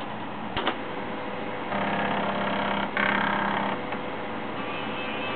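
A Shugart SA455 5¼-inch floppy drive at work while a game loads: a quick double click of the head stepping about half a second in. This is followed by a buzzing tone for about two seconds that changes about halfway through.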